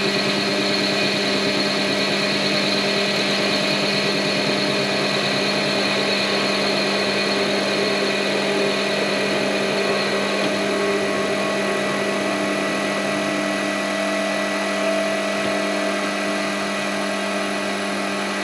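Warco mini lathe running at a steady speed, its motor and drive giving a constant hum with several steady tones, as a facing cut is taken across the end of an aluminium bar.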